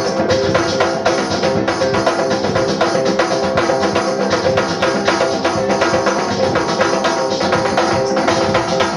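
Live improvised music: drums and a gong struck with mallets and sticks in a quick, steady run of hits, over held notes from a pedal steel guitar.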